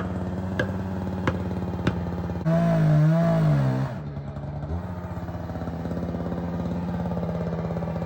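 Chainsaw engine running steadily, revved up briefly about two and a half seconds in, then settling back.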